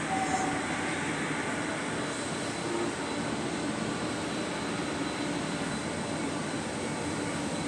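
Steady, even roar of industrial plant machinery, with a faint steady hum and thin high whine running through it.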